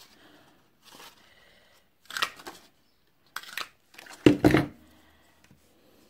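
Handheld 3/4-inch lever circle punch cutting small circles from red patterned paper: a few short, sharp clacks with paper rustling between them. The clack about four and a half seconds in is the loudest, with a dull thud.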